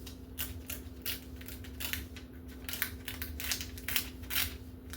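Paper crinkling and rustling in short, irregular crackles as old book pages are pulled out and handled.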